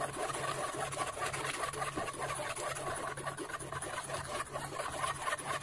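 A spoon scraping and pressing thick blended phalsa pulp through a strainer: a rapid, continuous run of small scratchy clicks.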